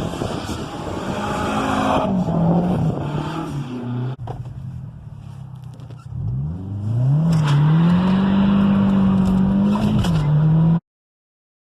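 2009 Mazda3's 2.3 L four-cylinder with an untuned straight-pipe exhaust from a racing header, running loud. Its pitch falls over the first few seconds and eases off, then climbs steeply about six seconds in and holds high under load. It drops slightly near the end and cuts off abruptly.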